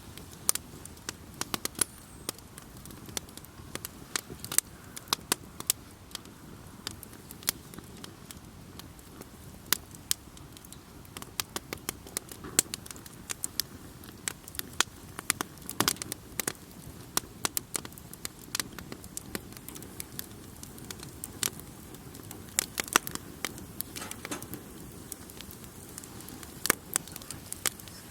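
Wood campfire crackling: irregular sharp pops and snaps, bunched several to a second at times, over a steady low rushing sound.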